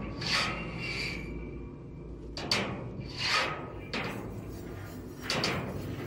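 A metal dumpster played as a percussion instrument: about six irregular swishing brush strokes across the bin, two of them opening with a sharp rap.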